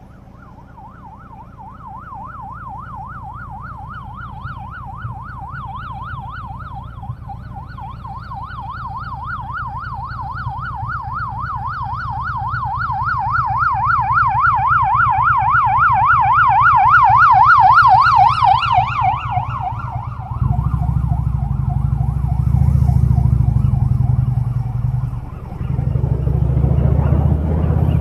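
An emergency vehicle's siren in a fast up-and-down warble grows steadily louder, then stops about twenty seconds in. A loud low rumble follows, with a brief dip near the end.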